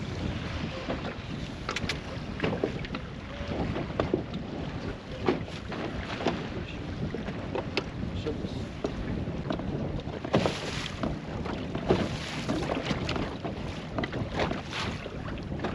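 Wind buffeting the microphone on a small boat on the water, a continuous rumbling hiss, with scattered clicks and knocks throughout and stronger gusts about ten and twelve seconds in.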